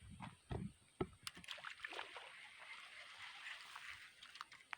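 Faint water sloshing, with a few low knocks and sharp clicks in the first second or so.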